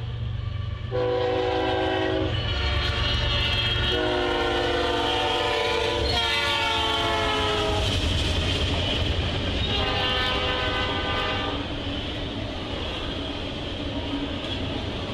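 Freight locomotive air horn sounding several blasts for a grade crossing, its pitch sliding down as the locomotive passes, over the steady rumble and clatter of a double-stack container train rolling by.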